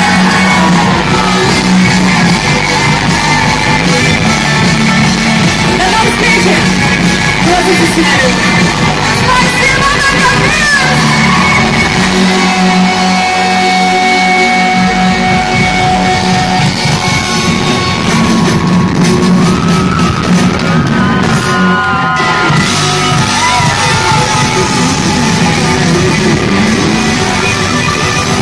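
Loud live pop-rock concert music: a band playing with a singing voice over it, and some yelling. The bass thins out for a few seconds midway, then the full band returns.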